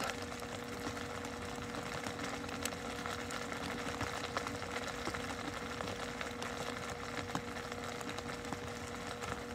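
A steady mechanical hum with a faint held pitch under it, even throughout, like an engine or motor running at idle.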